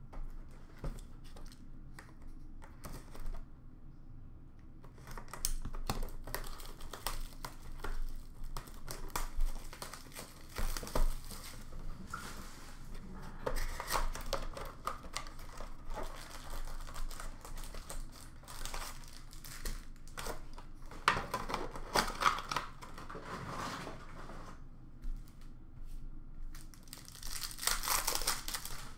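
Upper Deck hockey card box and foil packs being torn open and handled: crinkling and tearing of wrappers and cardboard, with a few taps at first and louder crinkling about two thirds of the way in and near the end.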